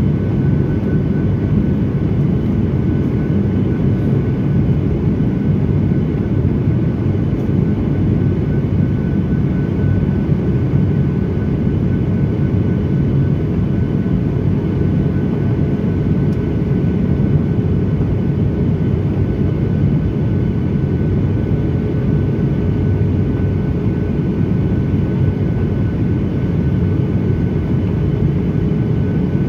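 Steady cabin noise inside a Boeing 737-800 in flight: its CFM56-7B turbofan engines and the rushing air make a low, even rumble, with a faint steady high whine on top.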